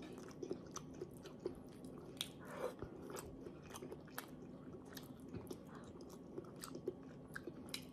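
Faint, irregular eating sounds: small mouth clicks and smacks of chewing soft stewed pompano, with fingers picking at the fish.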